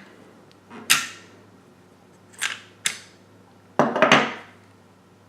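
Metal clicks and short scrapes of a Beretta 21A pistol being taken apart by hand: four sharp handling sounds, the last and longest about four seconds in.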